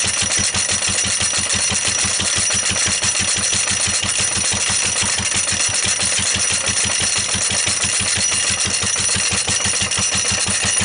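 Lister D single-cylinder stationary engine running steadily with an even, rapid exhaust beat, driving a corn grinder that has no grain in it.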